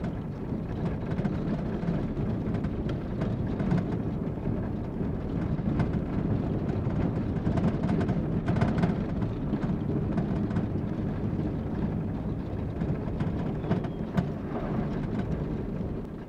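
Fiat Fiorino van driving slowly over an unpaved road of sand and loose stone, heard from inside the cabin: a steady low rumble of engine and tyres, with scattered knocks and rattles from the rough surface.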